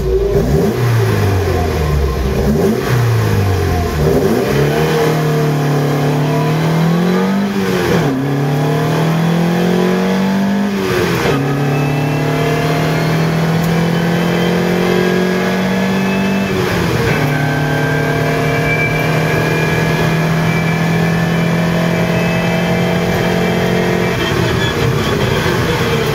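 Lotus Europa GT 1600's four-cylinder race engine under full throttle from the start of a hillclimb run, heard from inside the cabin. The revs climb through each gear, with quick upshifts about eight, eleven and seventeen seconds in, then hold high and steady.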